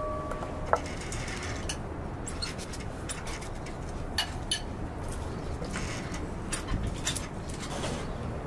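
A kitchen knife cutting raw potato into chunks over a bowl: a scatter of short, sharp clicks and snicks as the blade goes through and pieces drop, over a steady low background rumble. A brief steady tone sounds in the first second.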